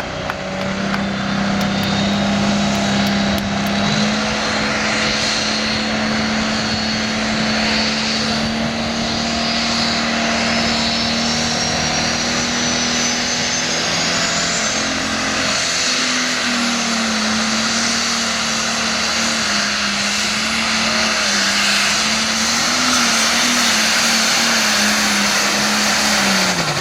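Super Farm class pulling tractor (a modified Case) running its turbocharged diesel flat out while pulling the sled, with a high turbo whistle that rises steadily over the first half. About halfway the engine note dips and wavers, then drops away near the end as the throttle is cut at the end of the pull.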